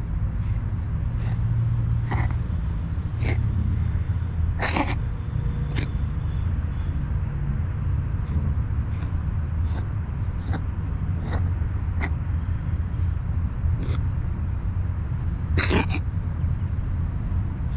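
Unwell tuxedo cat coughing over and over: a run of short, sharp hacks, with two longer, stronger coughs, about 5 seconds in and near 16 seconds, over a steady low rumble.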